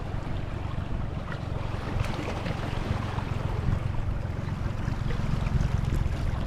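Steady wind rumble on the microphone, with the sound of water moving around a boat.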